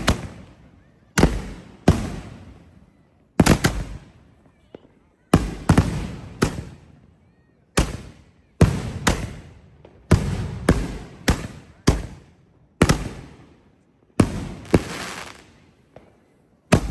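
Consumer firework mortar racks, chain-fused so each tube lights the next, firing shells one after another: sharp loud bangs, each with a fading rumble, coming about once or twice a second.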